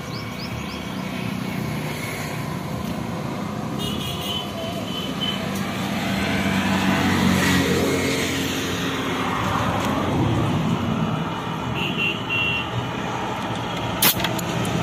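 Motor traffic running steadily nearby, swelling as a vehicle passes about halfway through, with short horn toots about four seconds in and again near the end. A sharp click comes just before the end.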